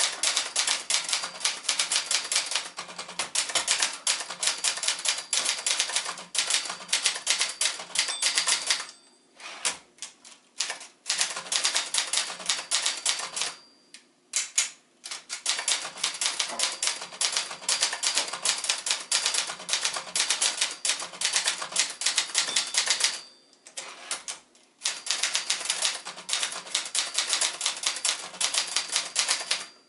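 1983 Brother Charger 11 manual portable typewriter (a late JP-1 model) being typed on: fast runs of sharp key and typebar clacks, broken a few times by brief pauses.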